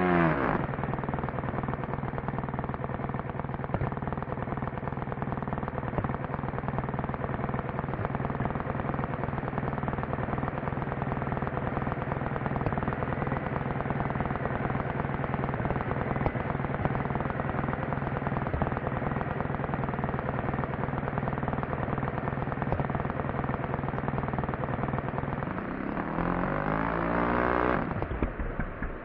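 RC model airplane engine running at a steady speed. About 26 s in its pitch sweeps up and back down, then falls away near the end.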